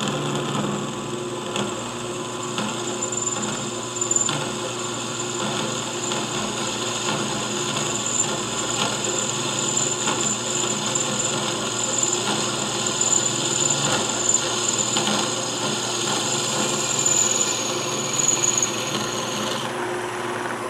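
Drill press running steadily while a quarter-inch tap-drill bit cuts into soft aluminum, with a high squeal from the cut that stops a second or so before the end. The bit is dull and the aluminum is getting hot.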